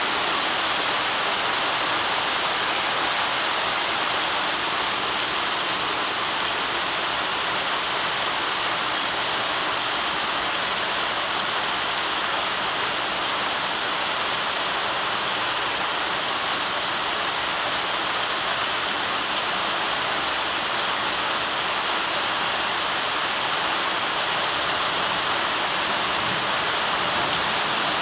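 Heavy rain pouring steadily in a downpour, a dense, even hiss with no breaks or thunder claps.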